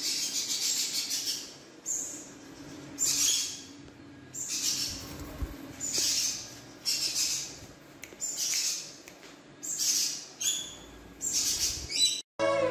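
A parrot screeching harshly over and over, a call about once a second, each lasting half a second to a second.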